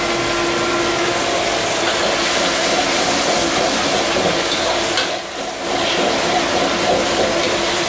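Steady roar of a gas wok burner with sauce sizzling and bubbling in a steel wok.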